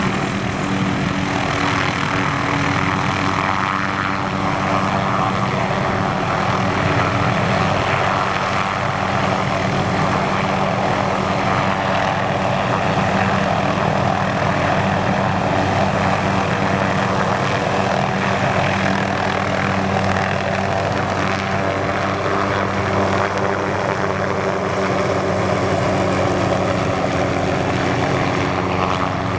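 McDonnell Douglas MD 500E helicopter taking off, its turboshaft engine and rotors running at takeoff power. The sound stays loud and steady in level throughout.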